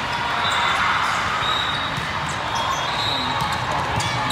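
Echoing din of a large hall full of indoor volleyball play: scattered ball hits and bounces over a steady wash of crowd noise, with short high squeaks now and then.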